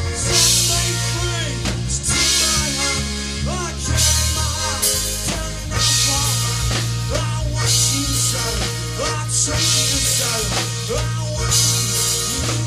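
Live rock band playing: drum kit with cymbal crashes every second or two over sustained bass guitar notes and guitars.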